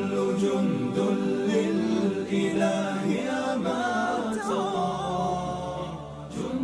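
An a cappella Islamic nasheed: voices chanting long, drawn-out, wavering notes over a low steady hum, with no instruments.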